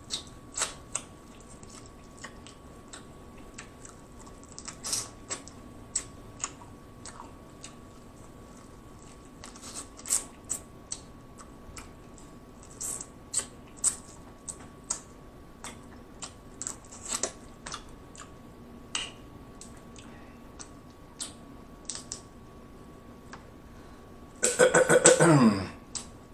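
Close-miked eating of snow crab legs: scattered wet clicks, lip smacks and slurps as the meat is sucked and pulled from the shells, with chewing. Near the end comes a loud, short vocal sound that slides down in pitch.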